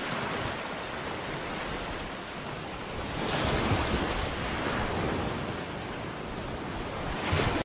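Small waves breaking and washing up over a shallow sandy shore, the wash swelling louder about three seconds in and again just before the end.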